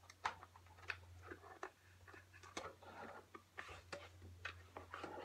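Faint, irregular clicks and light knocks of a Stihl PolyCut trimmer head being handled and taken off the shaft of the trimmer attachment.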